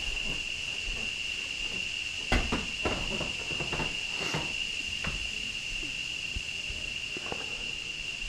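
Steady high-pitched insect drone, with a few scattered knocks of footsteps on a wooden floor, the loudest about two seconds in.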